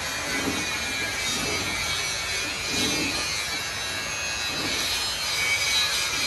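Hands scrubbing a large toothed truck gear in a drum of oily wash liquid, with irregular rubbing and sloshing strokes about once a second. A steady high-pitched hum sounds behind it.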